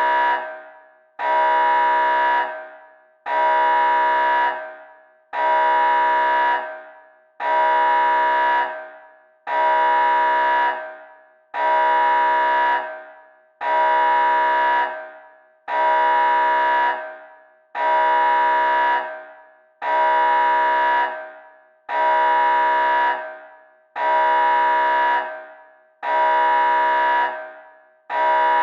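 Nuclear alarm sound effect: an alarm tone of steady pitch sounding in repeated blasts, about one every two seconds, each held for over a second and then fading away.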